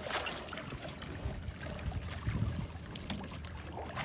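Seawater lapping and splashing against the hull of a small wooden outrigger boat, in irregular splashes over a steady wash of water.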